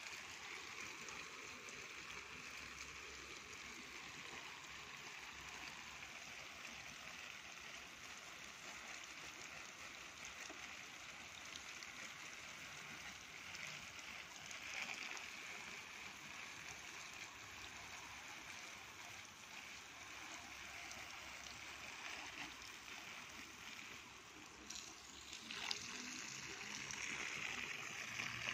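A stream of water splashing steadily through the leaves of a young mango tree, a soft even hiss and patter. Near the end the stream lands on the ground at the trunk's base and the splashing gets louder.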